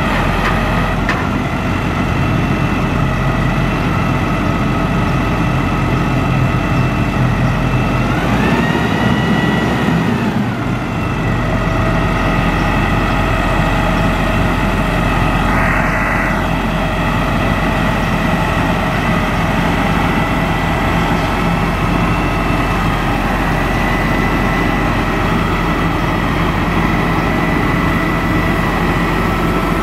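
Diesel engine of a Peterbilt 340 crane truck running steadily and driving the crane's hydraulics, with a steady whine over the engine rumble. About eight seconds in, the whine and engine rise in pitch, then settle back a couple of seconds later as the crane is worked; a short hiss follows a few seconds after that.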